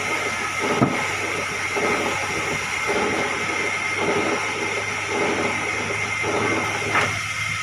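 Sawmill machinery running steadily, a hiss and hum with a high whine over an uneven rumble, and a sharp knock about a second in and another near the end.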